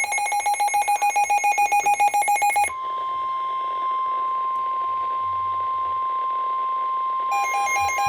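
Rapid electronic alert beeping at about five beeps a second, then a steady single-pitch NOAA Weather Radio warning alarm tone of about 1050 Hz that starts a little under three seconds in and holds. A short burst of the beeping comes back over the steady tone near the end. This tone is the signal that a warning message follows.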